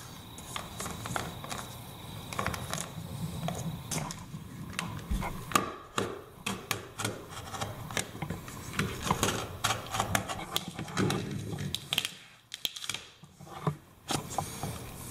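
Irregular clicks, taps and short scrapes of hands and a hand tool working an electric floor-heating cable into a plastic studded uncoupling membrane at the base of a wall.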